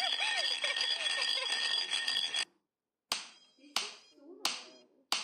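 Short rising-and-falling baby coos and giggles over a steady high-pitched background, which cuts off sharply about two and a half seconds in. After a brief silence come sharp slaps at an even pace, about one every two-thirds of a second, four in all.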